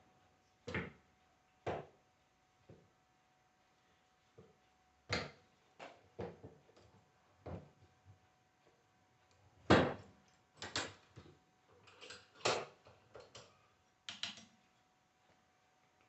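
Irregular knocks and clicks of hand tools and alternator parts being handled on a workbench as the alternator is taken apart, about a dozen separate hits, with the loudest near the middle and a quick cluster toward the end.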